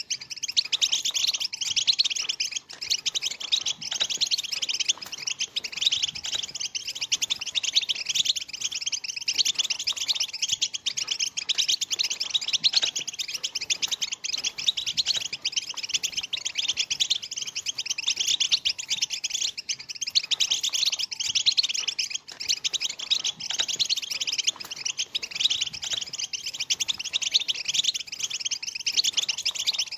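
A flock of European goldfinches twittering and chattering all at once, a dense, unbroken, high-pitched chorus of overlapping chirps.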